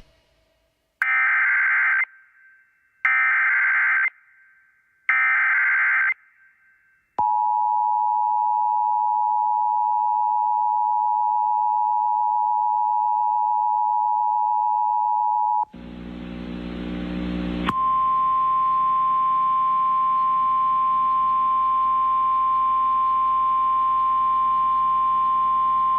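Emergency Alert System activation. It opens with three one-second bursts of SAME header data tones about two seconds apart, then the two-tone EAS attention signal held for about eight seconds. After a brief burst of hum and static comes a single steady alert tone with static behind it, signalling an incoming tornado warning.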